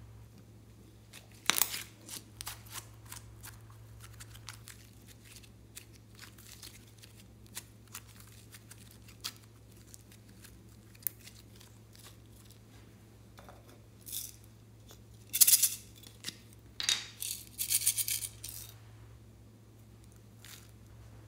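Glossy slime worked by hand, stretched and kneaded: a run of sticky clicks and pops, with a louder cluster about a second and a half in and louder crackling stretches between about fourteen and nineteen seconds.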